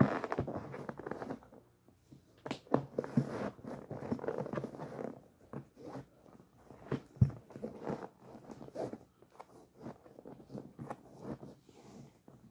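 Laces being pulled and tightened through the eyelets of new hockey-style ice skates: irregular rasping and rustling, busiest in the first half, with one sharp knock about seven seconds in.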